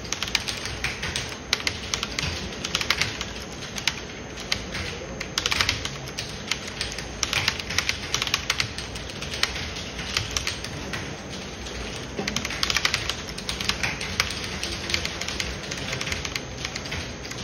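Typing on a computer keyboard: keys clicking quickly and irregularly, in quick runs with short pauses.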